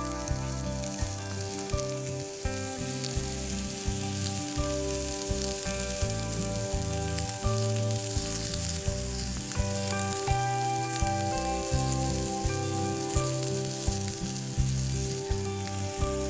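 Smoked pork belly bacon sizzling over a campfire, with a steady hiss and small crackles, under background music.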